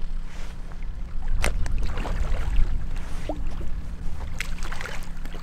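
Wind rumbling on the microphone beside a river while a hooked fish is played near the bank, with a few sharp clicks and splashy bursts.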